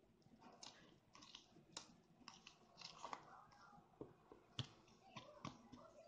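Small plastic toy shovel stirring wetted instant-snow powder in a plastic bowl: faint, irregular scraping and crunchy clicks.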